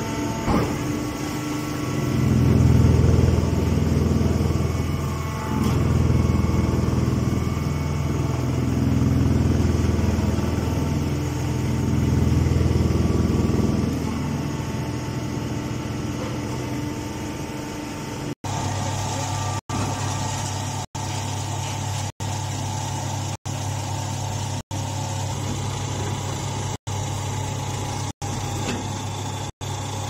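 Chopped-straw baling press and its feed conveyor running: a steady machine hum with a low rumble that swells and fades several times in the first half. In the second half the sound cuts out for an instant about every second and a half.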